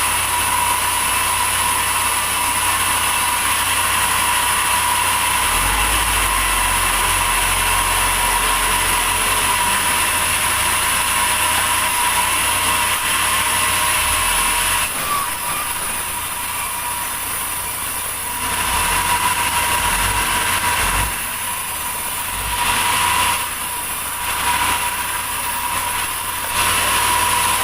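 Sawmill saw machinery running steadily with a constant high whine. In the second half the sound dips and comes back three times.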